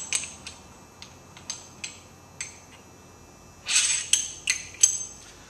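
Rifle parts clicking and clinking against a steel bench vise: a scattering of light, sharp clicks, then a brief scraping clatter with a few ringing metal clinks a little before four seconds in.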